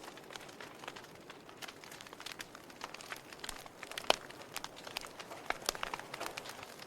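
Wood fire in a fireplace crackling, with irregular sharp pops over a soft steady hiss; the loudest pop comes about four seconds in.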